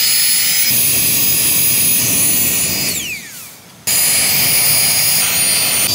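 Small battery-powered air pump (Flextail Tiny Pump) blowing air into campfire embers to fan the fire hotter. A high whine rises as the motor spins up, then a steady loud rush of air with a thin whistle. The whine falls away about three seconds in as it stops, and the rush and whine come back abruptly about a second later.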